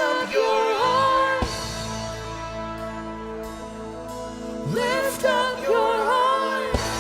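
Worship music: a voice singing a wordless, melismatic line over sustained keyboard chords and bass, with two sung phrases, one at the start and another about five seconds in.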